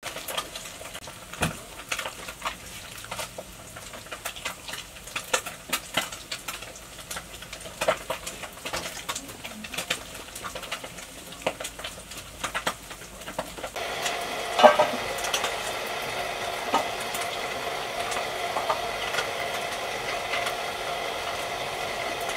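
Cauliflower florets snapped and broken off by hand, a run of crisp cracks and clicks. About two-thirds of the way through, a steady hum starts under them.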